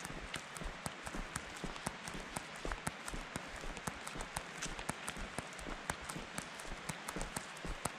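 Footsteps crunching on a gravel trail: many sharp, irregular crunches over a steady rushing hiss.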